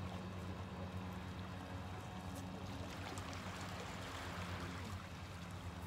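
Small waves of a calm sea lapping and washing around rocks at the water's edge, the wash swelling about three seconds in, with fine ticks of trickling water. A steady low hum runs underneath.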